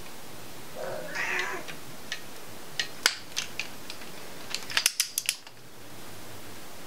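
A cat meows once about a second in. Then come sharp metallic clicks, single ones and then a quick run of several near the end, from the ratcheting torque wrench on the camshaft timing-sprocket bolt being tightened.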